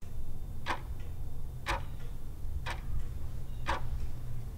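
Clock ticking about once a second, over a low steady hum.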